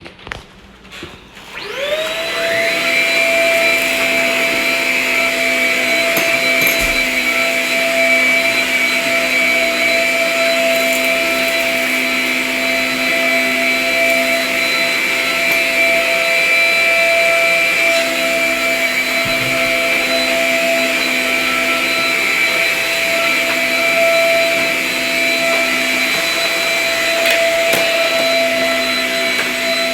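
Vacuum cleaner switched on after a few clicks, its motor spinning up with a rising whine about two seconds in, then running steadily.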